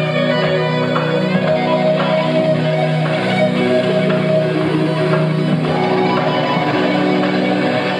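Electric guitar solo played live on stage, a run of long sustained notes that change pitch every second or two.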